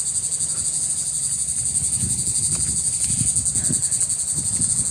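Loud, steady chorus of insects: a shrill high buzz with fast even pulsing. Low rustling and soft thuds run under it in the second half.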